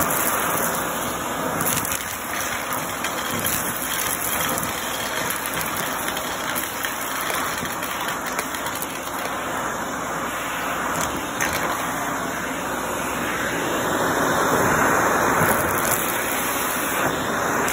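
Shark handheld vacuum running steadily while sucking up shredded paper, seeds and coins from a carpet, with a few clicks as bits of debris rattle into it.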